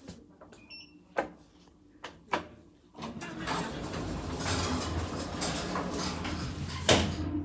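OTIS Gen2 elevator's automatic sliding doors closing: the door operator runs with a steady sliding rumble for about four seconds and ends in a sharp thump as the doors shut. Earlier there are a couple of sharp clicks.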